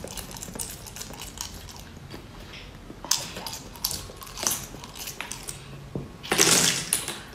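Close-up eating sounds: wet slurping, sucking and chewing as small pieces of seafood are pulled off metal skewers with the mouth, with many small clicks. A louder, noisier stretch comes about six seconds in.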